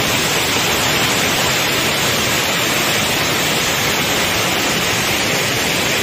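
Water rushing steadily down a rocky stream cascade, a loud, even hiss.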